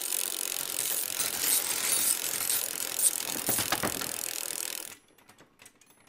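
Bicycle rear hub freewheel ratcheting as the wheel spins, a rapid, dense clicking buzz that cuts off about five seconds in. A few faint clicks follow.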